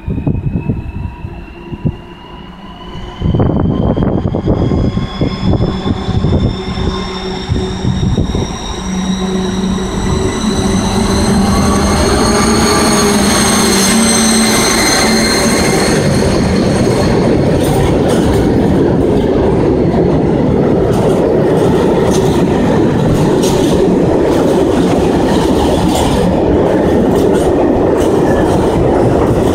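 BR231 'Ludmila' diesel locomotive passing at close range: a high whine from the engine rises in pitch as it approaches and peaks as it goes by about halfway through. It is followed by the freight wagons rolling past with a steady wheel rumble and clatter over the rail joints.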